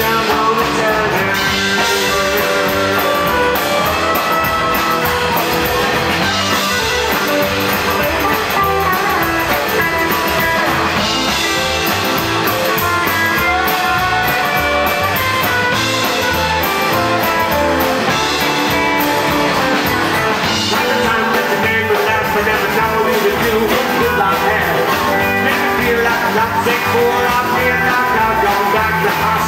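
Live rockabilly band playing an instrumental stretch of a song without words: Telecaster-style electric guitar, strummed acoustic guitar, upright bass, drums and keyboard, at a steady driving beat.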